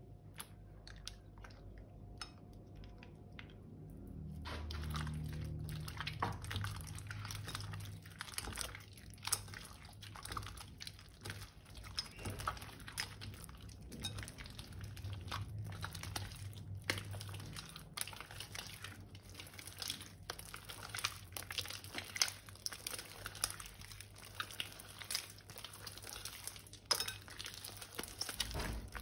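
Sticky glitter slime mixed with beads and buttons being squeezed and kneaded by hand over a glass bowl: wet crackling and popping clicks. The clicks are sparse for the first few seconds and grow dense from about four seconds in.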